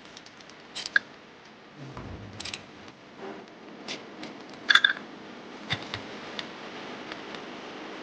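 Workshop handling noises of metal tools and parts: scattered sharp clinks and knocks, the loudest a ringing metallic clink near the middle, with a dull low thump about two seconds in.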